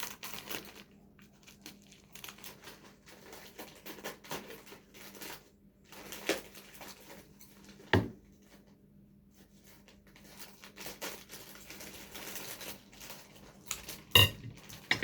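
Gift packaging being crinkled and torn open by hand, with scattered rustles and two sharp knocks, one midway and a louder one near the end.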